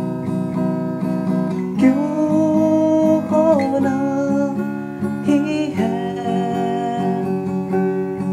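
Acoustic guitar strummed while a man sings a Hindi song, holding long notes that slide from one pitch to the next.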